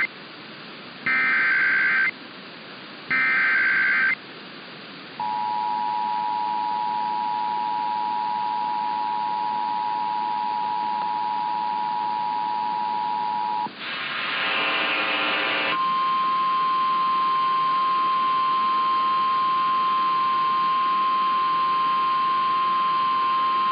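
Emergency Alert System signal: three roughly one-second bursts of warbling SAME header data tones, then the two-tone EAS attention signal held steady for about eight seconds. After a short buzzy burst, a single steady NOAA Weather Radio warning alarm tone sounds for about nine seconds, announcing the relayed severe thunderstorm warning.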